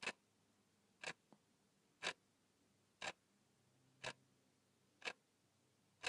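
Clock ticking, about one sharp tick a second, with near silence between the ticks.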